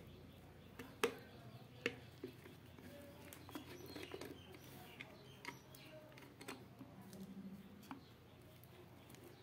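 Scattered light clicks and taps, about a dozen in nine seconds, over a faint low hum: tools and metal parts being handled while a fan is taken apart.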